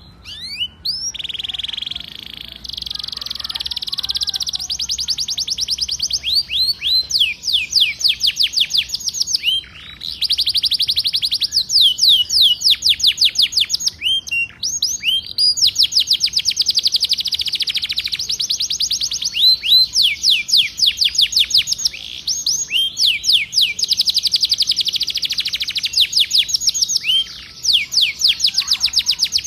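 Domestic canary singing long, fast trills and rolls of rapidly repeated high notes, phrase after phrase with only short breaks.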